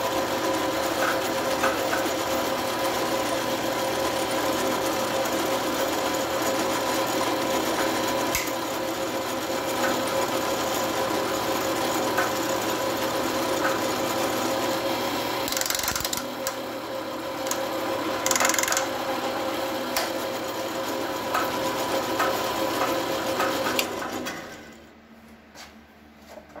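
Drill press running with a Tapmatic tapping head, a steady mechanical whir with a hum as it feeds a tap into a metal block and reverses it out. There are a couple of brief hissing bursts partway through, and the running stops about 24 seconds in.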